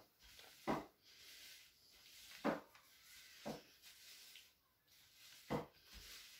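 Shetland sheepdog puppies play-wrestling, giving four short yaps spread over a few seconds, with faint rustling of the pad beneath them.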